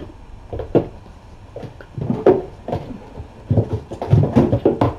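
Irregular dull thumps and light knocks of kittens and a person moving about a small room, with a quick run of thumps near the end.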